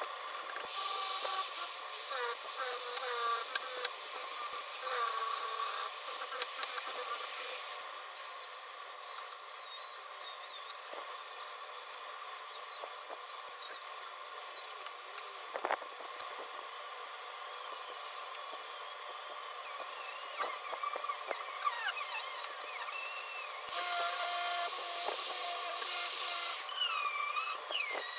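Handheld rotary tool with a small sanding drum running at high speed against steel vise parts, its whine wavering in pitch as the bit is pressed on and eased off the metal. Louder spells of harsh grinding come in the first several seconds and again near the end.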